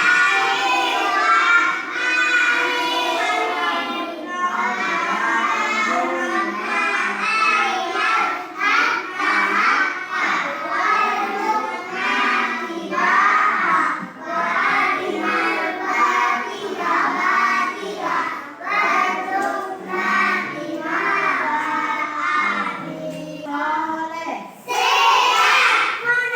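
Children singing a song together, with only short breaks between lines; the singing stops briefly just before the end.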